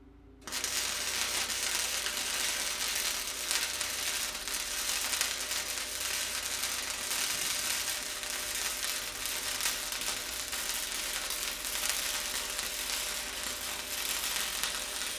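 Harbor Freight 110-volt flux-core wire welder running a continuous arc while a steel bracket is welded to a steel butt hinge. The arc strikes about half a second in, holds steady with no break for about fourteen seconds, and cuts off suddenly right at the end.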